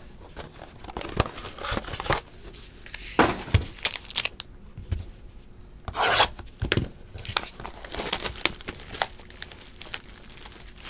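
Plastic shrink wrap being torn and peeled off a sealed trading-card box, with irregular rubbing and crinkling of the wrap and cardboard in the hands; a few sharper tearing bursts about three and six seconds in.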